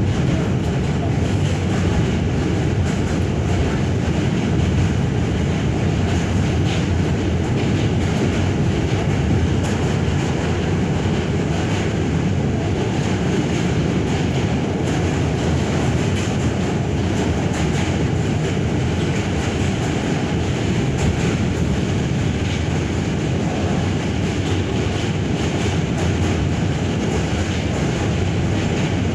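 R46 New York City subway car running at speed, heard from inside the car: a steady, unbroken noise of wheels on the rails.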